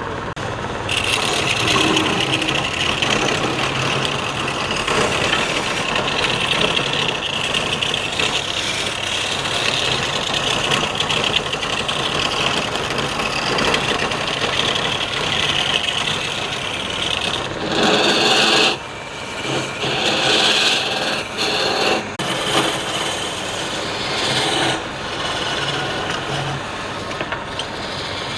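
Wood lathe running with a tool scraping against the spinning wood, a steady rasping hiss over the machine's hum. The hiss starts about a second in and stops and restarts several times in the second half.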